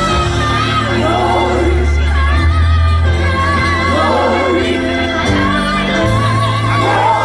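Gospel choir singing with vibrato over instrumental backing with long, held bass notes.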